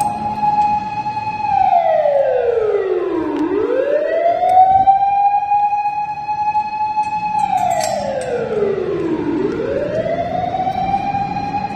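Japanese fire engine's siren wailing in long slow cycles: the tone rises, holds steady for a couple of seconds, then slides down, twice over, and is climbing again near the end.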